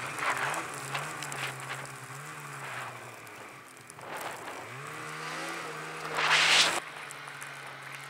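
Snowmobile engine running through deep powder. Its pitch climbs, then drops back twice as the throttle is opened and eased. About six seconds in, a loud rushing hiss briefly covers it.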